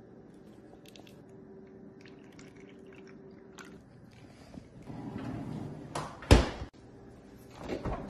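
Handling of a plastic ice cube tray filled with water: faint clicks and shuffling, then a rustling stretch, a loud sharp knock a little past six seconds in, and another shorter knock near the end.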